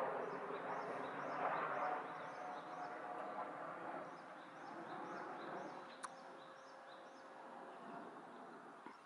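Japanese white-eyes (mejiro) giving short, thin, high chirps over and over, about two or three a second, over a steady low background rumble that is louder in the first two seconds.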